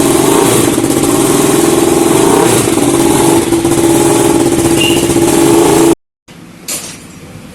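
KTM RC 200 motorcycle's single-cylinder engine running steadily and loudly through its exhaust. The sound cuts off suddenly about six seconds in, followed by a much quieter stretch with one knock.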